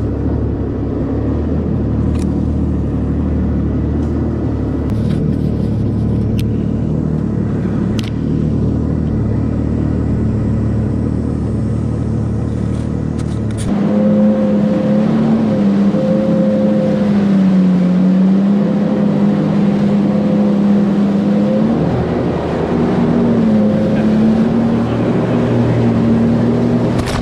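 Jet ski engine running at a low, steady note, then about halfway through it rises to a louder, higher pitch that wavers up and down as the throttle is worked.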